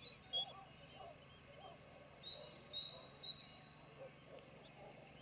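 Faint birdsong: repeated short high chirps and whistles, with a quick burst of rapid notes about halfway through.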